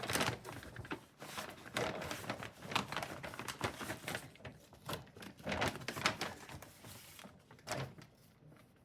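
A package being torn open and its wrapping crinkled and rustled by hand, in a string of short rustles that die away about eight seconds in.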